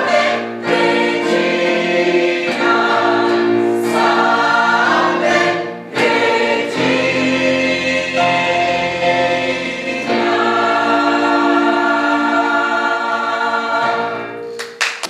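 Gospel choir singing in harmony, holding long chords; the singing dies away near the end.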